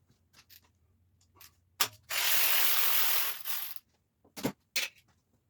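Hand socket ratchet clicking rapidly in one run of about a second and a half, then a shorter run, with a few separate clicks of the tool before and after.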